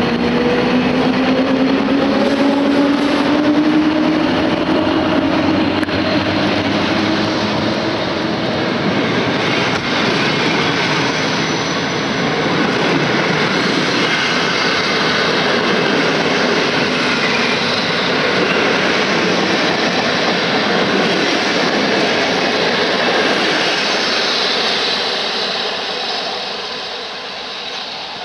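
PKP Intercity train hauled by an EP07 electric locomotive running through a station. A whine rises in pitch over the first few seconds over a dense, steady rumble of wheels on rail, which eases off near the end.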